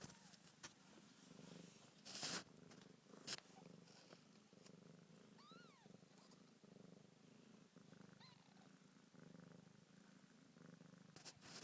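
Domestic cat purring steadily in slow, even cycles, close to the microphone. About two seconds in, fur brushes against the phone with a loud scraping rustle. Two short squeaks rise and fall in pitch near the middle and again a few seconds later.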